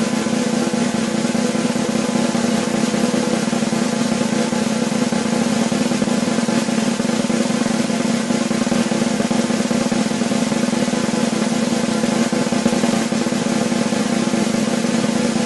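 A continuous drum roll, rapid strokes blending into one unbroken rattle at an even level, with no pauses or accents.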